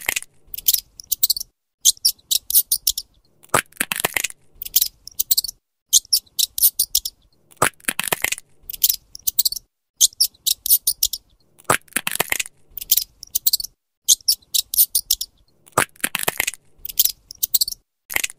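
Rapid crunching clicks of a squirrel gnawing a nut, in short quick runs with one longer, louder crunch about every four seconds; the same cycle repeats evenly, like a looped recording.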